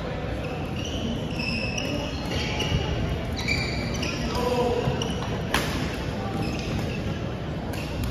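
Badminton play on a wooden gym floor: many short, high shoe squeaks, with one sharp racket strike on the shuttlecock about five and a half seconds in, over a steady low background rumble.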